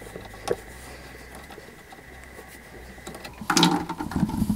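Braided steel toilet supply hose being unscrewed from the tank's inlet over a plastic bucket: a single click about half a second in, then a brief loud clatter near the end as the hose comes free and knocks against the bucket.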